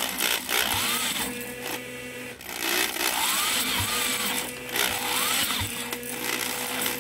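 Single-cylinder Briggs & Stratton engine being spun over steadily by a motor, with the spark plug out and a finger held over the plug hole to check compression. A few short squeals that rise and fall in pitch sound over the steady whir.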